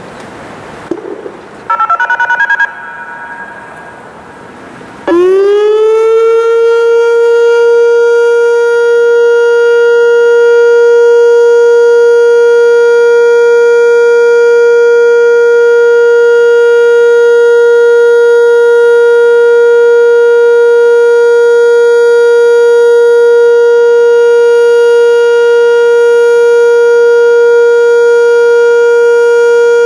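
Whelen WPS-2750 electronic outdoor warning siren sounding its steady Alert signal, the severe-weather warning tone. About five seconds in it sweeps quickly up to pitch, then holds one loud steady tone. Just before, about two seconds in, there is a brief two-note electronic beep.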